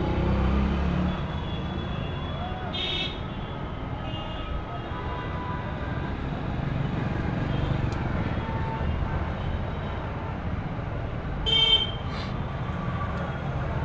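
Road traffic running steadily, with short vehicle horn toots: one about three seconds in and a louder pair near the end.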